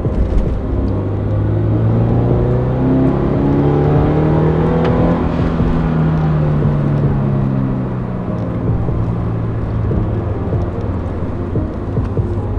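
Toyota GR86's 2.4-litre flat-four running through an HKS Hi-Power SPEC-L2 cat-back muffler: it revs slowly up, peaks about five seconds in, and falls back to a steady idle.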